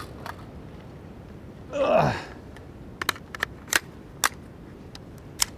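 Sharp metallic clicks and clacks of an AR15 rifle being worked by hand: a stoppage being cleared, which the shooter puts down to a Lancer magazine. Most clicks come in a cluster about three to four seconds in, with a few more near the end.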